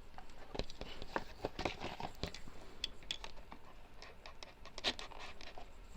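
Cardboard being worked by hand: irregular scratching and scraping with light taps and rustles.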